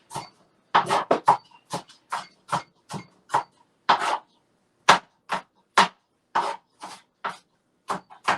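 Kitchen knife chopping vegetables on a cutting board: about twenty short, separate strokes at an uneven pace of two to three a second.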